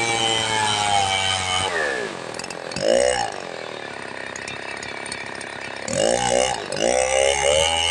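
Two-stroke chainsaw running at high revs, then dropping to idle just under two seconds in, with one quick rev blip about a second later. Near the end it is revved again in two short blips.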